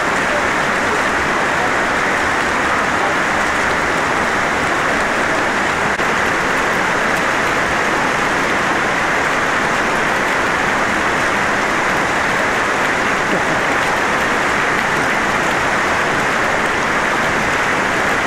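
A steady, unbroken rush of water at an even level throughout.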